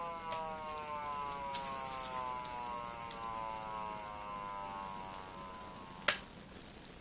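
Patlite SAP-500BK-PV siren amplifier sounding a siren tone that glides slowly down in pitch and fades away, like a motor siren winding down. A sharp click about six seconds in.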